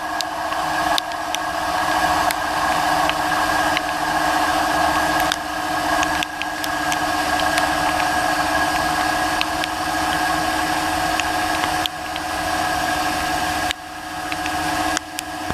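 CNC lathe running while cutting stainless steel: a steady machine whine with several held tones over a hiss of cutting noise, with scattered light clicks and a brief drop in level near the end.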